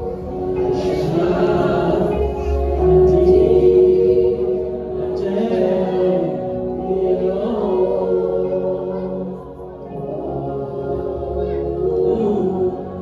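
Live gospel singing: a woman sings lead into a microphone while a small group of backing singers join in.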